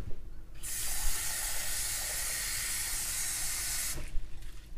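Kitchen faucet running, water pouring onto quinoa to rinse it. The flow starts about half a second in and stops about four seconds in.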